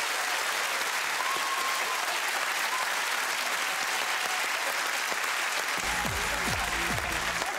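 Studio audience and panellists applauding, a steady dense clapping.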